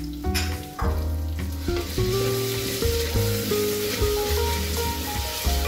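Onions and ginger-garlic paste sizzling in hot oil in a clay pot as they are stirred with a wooden spoon. The sizzle starts about half a second in and stops just before the end, with background music underneath.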